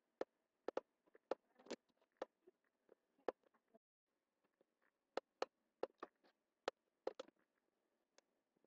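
Computer mouse buttons clicking: sharp single clicks and quick double clicks at an irregular pace, with a pause of about a second partway through.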